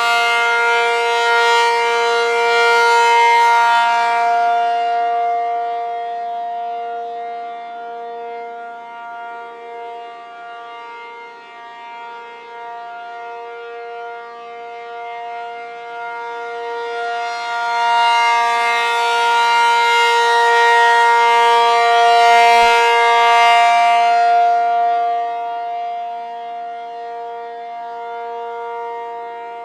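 Rotating outdoor warning siren sounding a steady alert tone, a chord of fixed pitches with no rise or fall in pitch. Its loudness swells and fades as the rotor turns, loud at the start, dipping about eleven seconds in, and peaking again about twenty seconds in.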